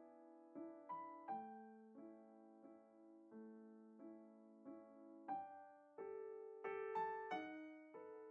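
Quiet piano music: single notes and chords struck and left to ring, a few a second, growing louder and higher from about six seconds in.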